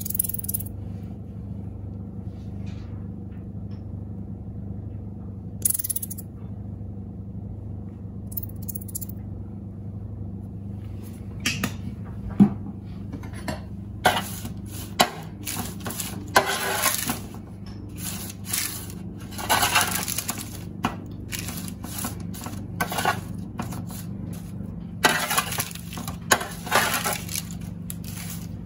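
Metal spoon scraping and clinking against a metal roasting tray as roasted butternut squash wedges are tossed in honey. There are a few isolated clicks at first, then frequent short scrapes and knocks through the second half, over a steady low hum.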